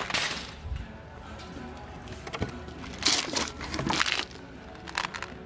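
Plastic jars full of candy being lifted and set into a wire shopping cart: a few short bursts of knocking and rattling handling noise, at the start, around three to four seconds in and again near the end, over faint background music.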